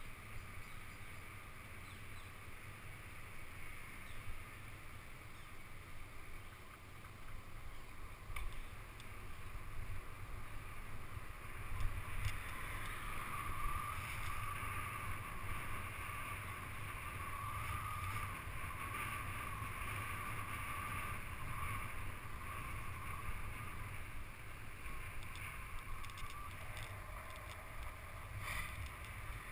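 Wind and road noise on the microphone of a camera riding on a moving bike: a steady low rumble with a rushing hiss, which gets fuller about twelve seconds in.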